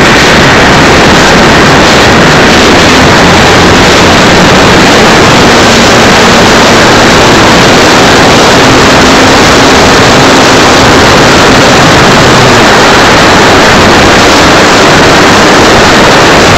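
Loud, steady rushing noise pinned at full level: strong wind buffeting the microphone, with an engine running underneath.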